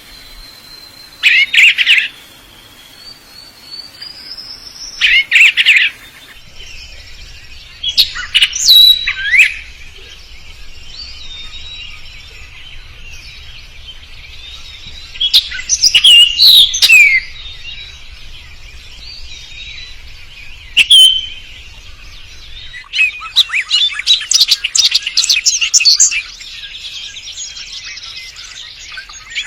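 A male songbird calling for a mate. It gives loud bursts of chirps and gliding whistled notes every few seconds, then a fast run of rapid chirps over the last several seconds.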